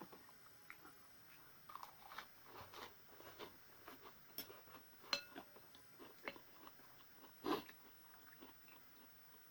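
A person eating noodle soup close to the microphone: quiet chewing and mouth noises, a short ringing clink of a utensil against the bowl about five seconds in, and a louder mouth noise about seven and a half seconds in.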